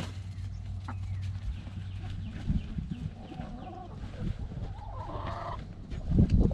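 A flock of hens clucking as they feed on comfrey leaves, with two short pitched calls about halfway through and scattered light pecking taps. A few low thumps near the end are the loudest sounds.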